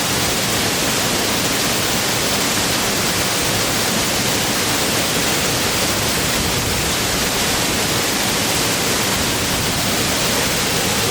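Waterfall water pouring and splashing in a steady, even rush.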